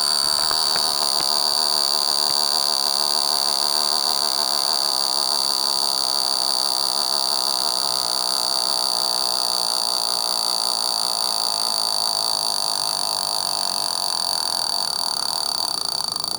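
Mechanical alarm of a vintage Jaeger-LeCoultre sub-miniature alarm clock going off: a continuous, very loud, high-pitched ringing buzz that holds steady throughout.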